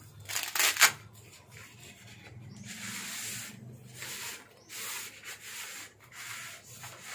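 Cloth rod sleeve being pulled off a jigging rod: a couple of short, sharp rustles near the start, then the fabric rubbing and hissing along the rod in several drawn-out strokes.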